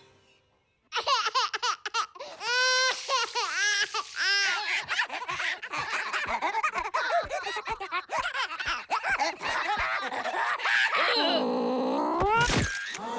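High, squeaky cartoon laughter after about a second of silence, in repeated bursts with fast chattering, and a lower swooping vocal sound near the end.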